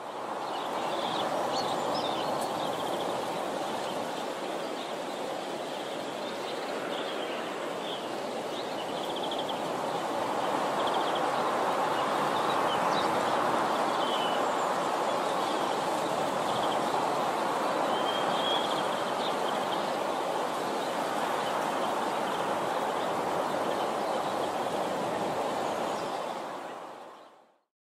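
Outdoor ambience: a steady noise with birds chirping now and then, fading out near the end.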